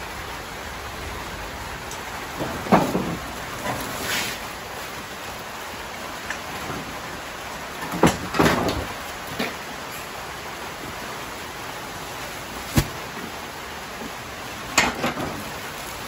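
Steady hiss of rain with scattered rustles and thumps of woven plastic sacks being shifted, several times, plus one sharp knock about two-thirds of the way through.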